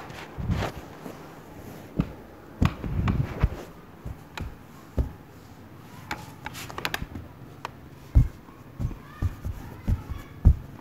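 Scattered light knocks and taps, a few of them sharp clicks, at irregular intervals.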